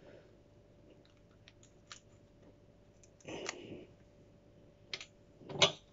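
Faint clicks and crackles of a large chocolate Peach Ghost cross chilli pod being pulled apart by hand, then a short sniff a little over three seconds in as it is held to the nose, and a sharper noise near the end.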